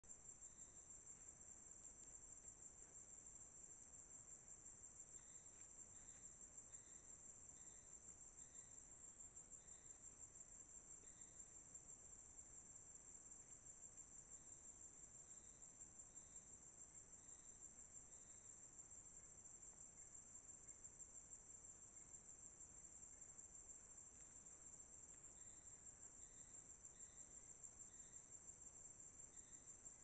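Faint, steady high-pitched insect chorus, with soft short notes repeating at uneven intervals.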